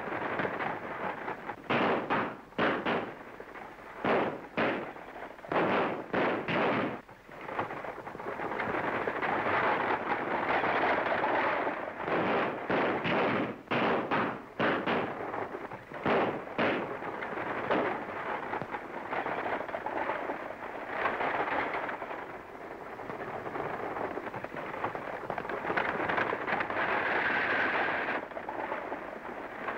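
Volleys of gunshots in quick succession, clustered through the first half, over a steady rushing noise that carries on after the shooting.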